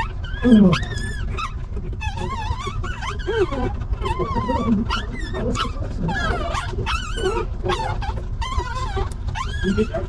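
Newborn puppies squealing and whimpering: many high, wavering cries overlapping throughout, with one louder, lower falling cry about half a second in. A steady low rumble runs underneath.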